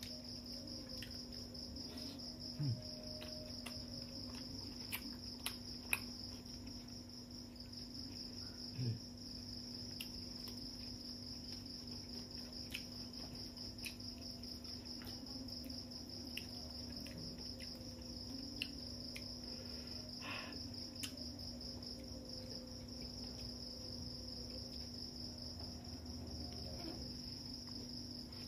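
Crickets chirring steadily at a high pitch, over a low steady hum. A few short clicks and mouth smacks come from eating rice with the fingers off a plate.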